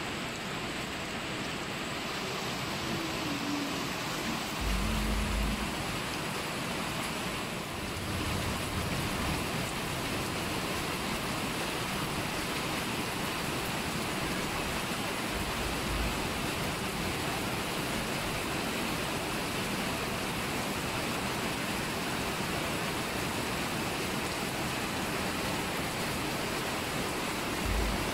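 Steady rain falling on broad leaves and foliage: an even hiss throughout. A few brief low thumps come through, about 5 s in, at 16 s and near the end.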